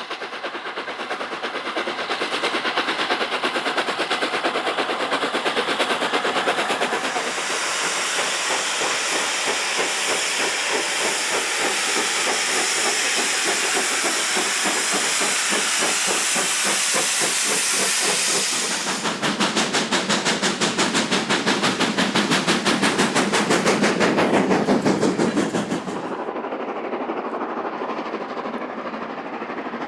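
Steam locomotive working hard, its exhaust beating in a rapid, even rhythm over a hiss of steam. Louder, more distinct beats come in about two-thirds of the way through, then drop away to a quieter, steadier rumble near the end.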